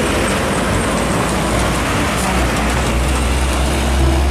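Hino 500 heavy box truck driving past on a road: low diesel engine rumble over loud road and traffic noise, with the engine sound growing louder near the end.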